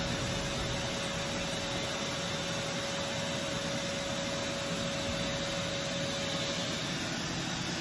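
Doosan CNC machining center running with a steady hiss and a steady whine, the whine cutting off about seven seconds in.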